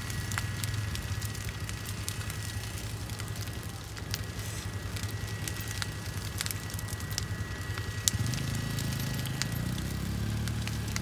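Large brush-pile bonfire burning, with scattered pops and crackles over a low rumble. The rumble grows a little louder about eight seconds in, where one sharper pop stands out.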